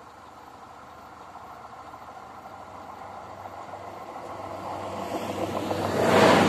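A diesel passenger railcar approaching and running over a level crossing. It grows steadily louder, then gets sharply loud near the end as the first wheels cross the road.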